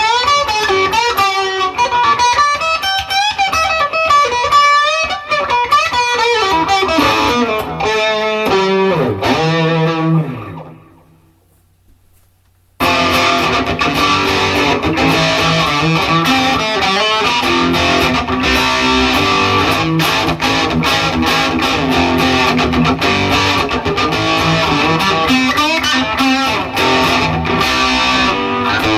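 Epiphone Les Paul Special II electric guitar played with a clean tone on its bridge pickup: single-note lines with bent notes that ring out and fade away about ten seconds in. After a couple of seconds of near silence, denser playing starts abruptly and carries on.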